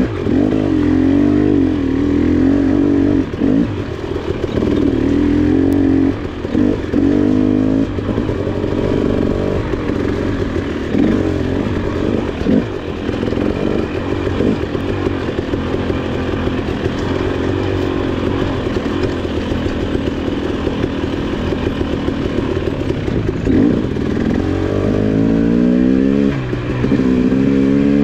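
KTM 300 XC's 300 cc two-stroke engine running under constantly changing throttle, its pitch rising and falling as the bike is ridden over rough trail. Several quick rising revs come near the end.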